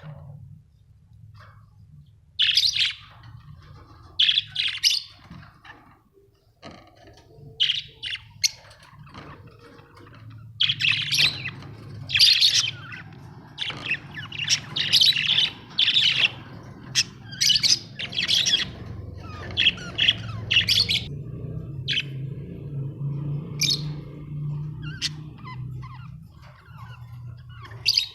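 Budgerigars chirping in short bursts, thickest through the middle, over a low steady hum.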